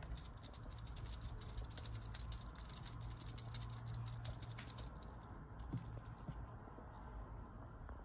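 Kittens playing in a crocheted basket: quick, light scratching and rustling, dense for about five seconds, then thinning out and stopping about six seconds in, over a faint low hum.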